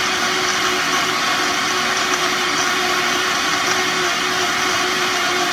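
High-powered countertop blender running steadily at full speed, churning a thick mix of frozen berries, frozen banana and ice: a loud, even whir with a steady motor hum underneath.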